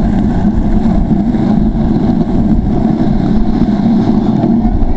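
Steady rush of wind on the microphone mixed with rolling road noise, recorded while moving at speed down a paved mountain road.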